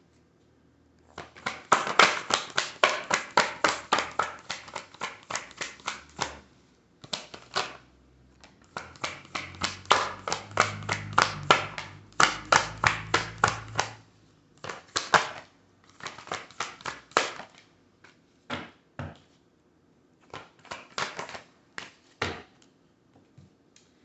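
A deck of oracle cards being shuffled by hand: quick runs of crisp card slaps, several a second, in bursts with short pauses between them.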